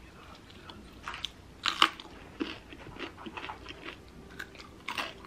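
Close-up crunchy bites and chewing of a green chili pepper: a run of sharp crunches, the loudest about two seconds in, with moist chewing between them.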